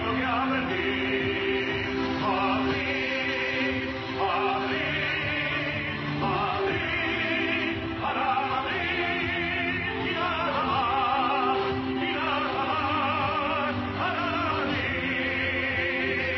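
Music: operatic singing with long, wavering held notes in phrases of a second or two over a steady accompaniment.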